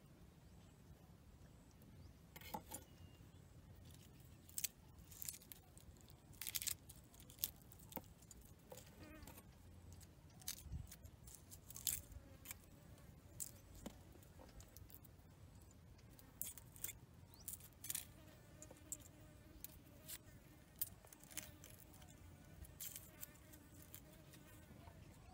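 Faint, scattered clicks and scrapes of a small kitchen knife peeling garlic cloves, with the cloves and skins set down on a wooden cutting board.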